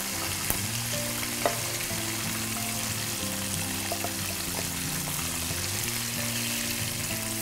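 Flour-coated chicken drumsticks deep-frying in oil on a low flame, with a steady sizzle. There are two brief clicks about half a second and a second and a half in, and background music with held notes plays underneath.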